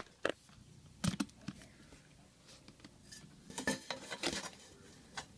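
Intermittent short clinks and clatters of hard household objects being handled, in a few separate bursts with quiet between them.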